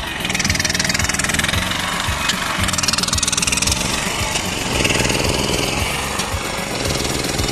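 Engine-driven machinery running steadily with a fast, even pulsing.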